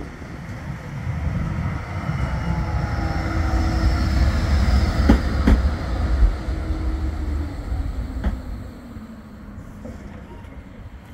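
Bombardier Flexity 2 tram approaching along street-side track and drawing alongside. Its low rumble and motor whine grow louder towards the middle, where two sharp clicks come close together, then ease off as it slows past.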